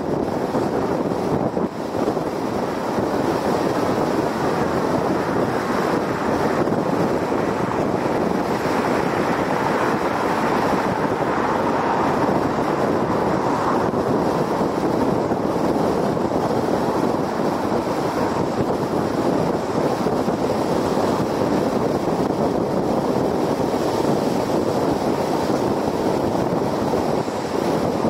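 Steady tyre and wind noise of a car cruising at highway speed, with wind buffeting the microphone.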